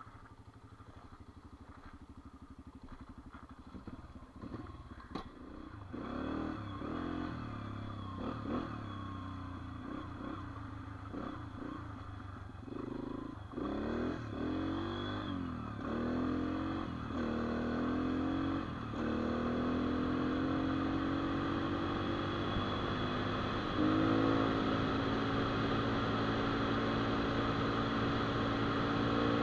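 Yamaha TT-R dirt bike's four-stroke single-cylinder engine, idling quietly at first. From about six seconds in it pulls away, its pitch climbing and dropping again with each gear change, then it settles into a steady cruise with a brief rev-up about two-thirds of the way through.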